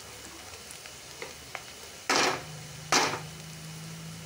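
Onions, cooked soft in hot oil in a metal kadhai, sizzling faintly, with two loud scrapes of the metal spatula against the pan a little after two seconds in and again about a second later.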